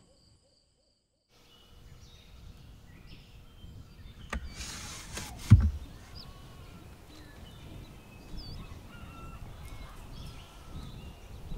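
Birds chirping and singing in a quiet outdoor background. About halfway through, the camper van's sliding side window is slid open with a short scraping hiss and a loud clunk.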